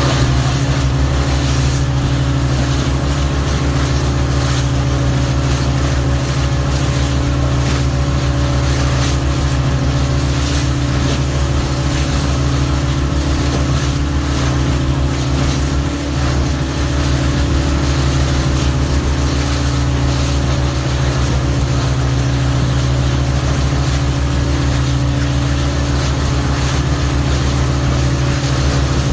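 A motorboat's engine running at a steady drone, with a constant rush of wind and water over it.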